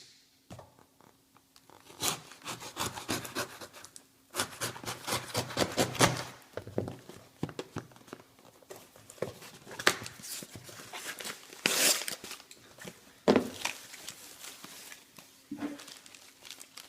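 A package being opened by hand: irregular rustling, crinkling and scraping of packaging, with a few sharper cracks.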